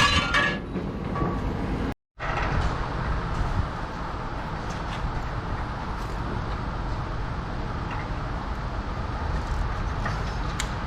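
Vehicle engine running steadily with a low rumble and a few faint ticks and knocks. The sound cuts out completely for a moment about two seconds in.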